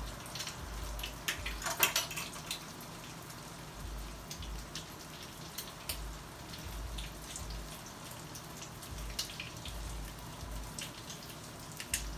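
French toast frying in a skillet on an electric coil burner: a light sizzle with scattered small crackles and pops, a slightly louder cluster about two seconds in.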